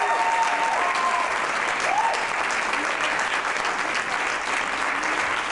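Audience applauding steadily, with a couple of short whoops in the first two seconds.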